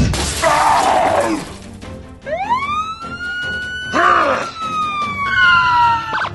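Cartoon sound effects over background music: a short noisy burst near the start, then a whistling tone that rises, holds and slowly sinks for about four seconds, with a brief burst partway through.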